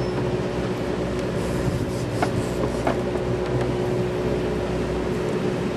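Steady hum of the sportfishing boat's engine running, with a few short clicks over it.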